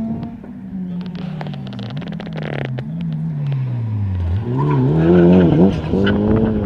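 Rally car engine slowing for a corner: its note falls steadily, with a run of sharp cracks along the way. It then climbs again in wavering surges as the car accelerates away, loudest about five seconds in.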